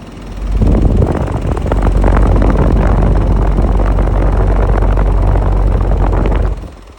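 Outdoor condenser unit of a 12,000 BTU Samsung split air conditioner rattling and clattering loudly over a deep rumble, like a washing machine on spin: an abnormal mechanical noise from the condenser. It swells up about half a second in and cuts off shortly before the end.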